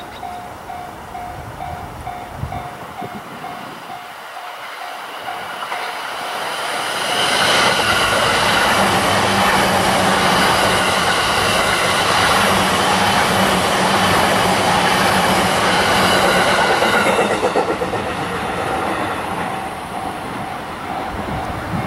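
JR East E657 series limited express electric train passing at speed. It grows louder from about six seconds in, stays loud for about ten seconds with a low steady hum under it, then fades. A short tone repeating a few times a second is heard before the train arrives and again as it fades.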